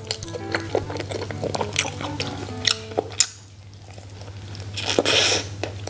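Background music with a light plucked melody, dropping out briefly about three seconds in. Near the end comes a short burst of rustling noise as a soft steamed bun is bitten into.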